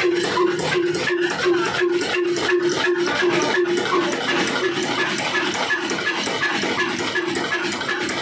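Old Fine Mughal & Sons horizontal single-cylinder diesel engine running, its flywheel turning steadily, with an even mechanical beat of knocks and ticks about three times a second. A pulsing hum rides on the beat and fades out about halfway through.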